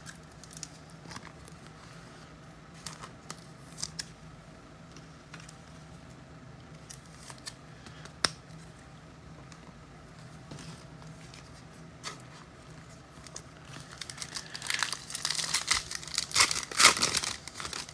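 A trading-card pack wrapper being crinkled and torn open by hand, with scattered small clicks and rustles of cards being handled. The crinkling and tearing grows dense and loudest near the end.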